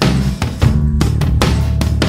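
Loud music with a hard-hitting drum kit beat, bass drum and snare, over heavy bass.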